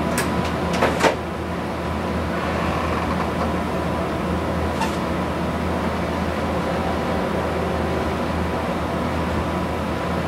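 Steady low mechanical hum with a thin continuous tone above it, and a few sharp clicks in the first second.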